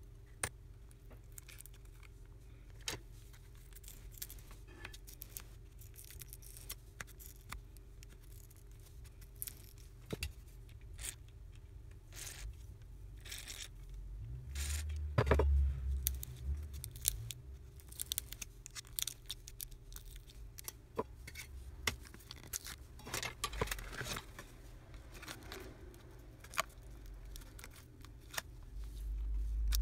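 Scattered light clicks and scrapes of fingers and tools handling a disassembled OnePlus 3T's metal midframe and battery, with a low bump about halfway through and another near the end.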